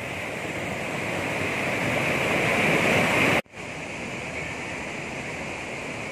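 Rushing of a mountain river in spate, the Neugal river swollen by a cloudburst flood, a loud, even roar of churning floodwater that swells slightly. About three and a half seconds in it cuts off abruptly and comes back as a steadier, quieter rush of water.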